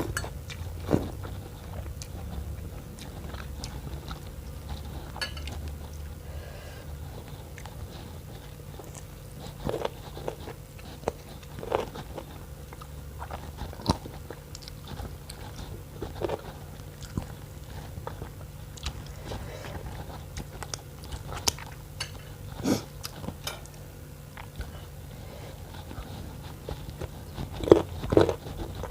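Close-up eating sounds of a person working through spicy noodle soup with bones: irregular bites, chewing and occasional crunches, over a steady low hum.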